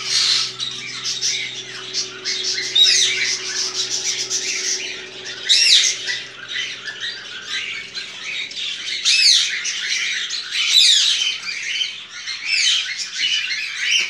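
Male chopi blackbird (pássaro-preto, graúna) singing: phrases of quick, sweeping whistled and squawky notes, one after another.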